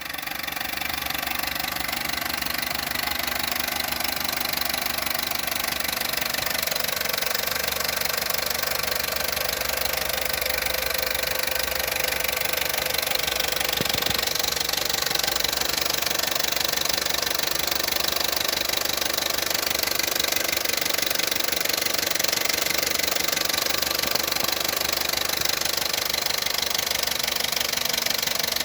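Opel Corsa D's 1.2-litre Z12XEP four-cylinder petrol engine running steadily, fully warmed up, with a noise the owner takes for timing chain noise.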